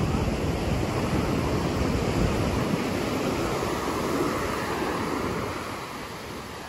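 Ocean surf breaking and washing up a sand beach, with wind buffeting the microphone; the sound eases off a little near the end.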